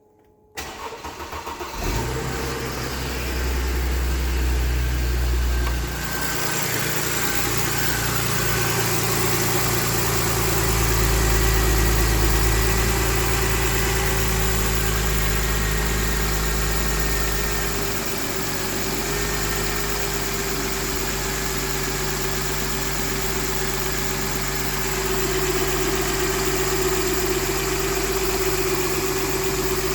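Mercedes-Benz M272 V6 petrol engine cranking briefly and catching about a second and a half in, then idling steadily.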